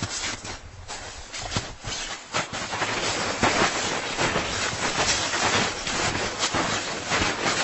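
Continuous rustling noise close to the microphone, with many short, irregular crackles.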